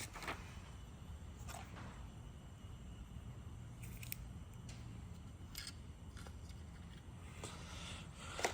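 Faint handling noise: a few scattered small clicks and rustles over a steady low hum.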